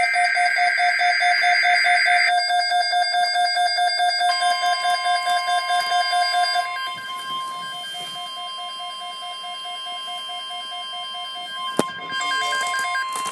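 Emergency alert tones from a NOAA Weather Radio broadcast. It opens with a short burst of screechy digital SAME header data. A rapidly pulsing alarm beep follows and stops about seven seconds in. The steady 1050 Hz weather radio warning tone starts about four seconds in and holds until just before the spoken alert, with a click near the end.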